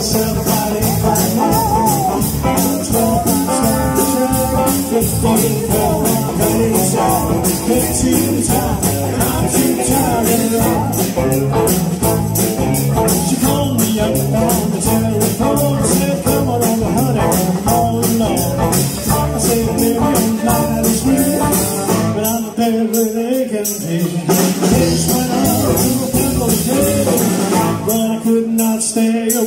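A live rock band playing: electric guitars, bass and drums with a steady beat, with vocals and a tambourine. The bass briefly drops away twice, about two-thirds of the way in and near the end.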